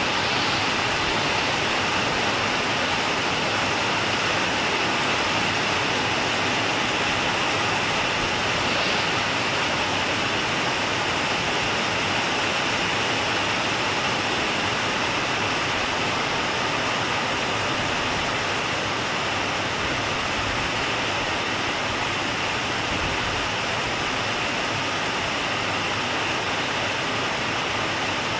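Heavy monsoon-style downpour: dense, steady rain hiss with no let-up.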